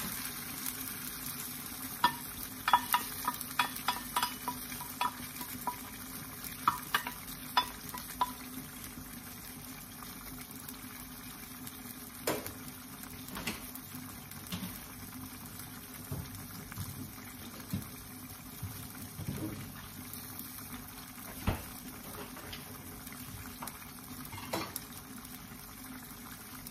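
Pork pieces sizzling and simmering in tomato sauce in a frying pan. In the first several seconds there is a quick run of light metallic clinks from a steel measuring cup knocked against the pan, then a few scattered pops.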